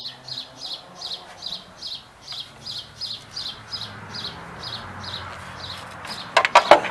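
A bird chirping over and over, short high chirps about three a second. Near the end there is a quick burst of sharp clicks or knocks.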